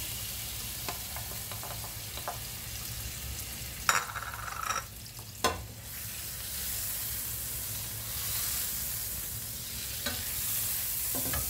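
Butter sizzling and frying in a hot nonstick frying pan as liquid is poured in and the pan is swirled, a steady hiss that grows a little brighter about halfway through. Two sharp knocks of pan or spatula come about four and five and a half seconds in.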